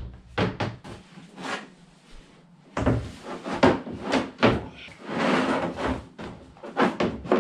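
Hollow hard-plastic ice sled knocking and scraping as it is turned over and set down on a wooden floor: a string of sharp knocks, with a longer scrape a little past the middle.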